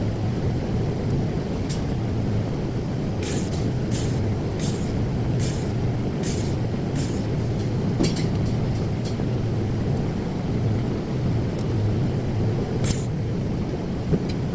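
TIG welding arc on 3 mm stainless steel plate, a steady hiss with a low buzz under it, and a run of short faint ticks between about three and seven seconds in.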